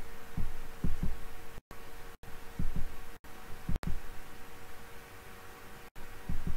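Dull low thumps, mostly in pairs, every second or so over a steady faint hum, with the audio cutting out completely for an instant several times.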